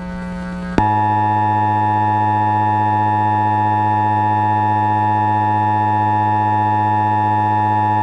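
A low electrical hum, then about a second in the Emergency Alert System attention signal starts abruptly: a loud, steady two-tone alarm of about 853 and 960 Hz, held unbroken without any change in pitch.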